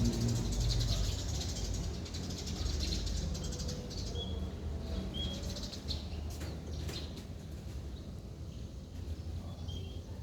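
Small birds chirping: fast, high twittering for the first few seconds, then a few short whistled notes, over a steady low background rumble with a few sharp clicks midway.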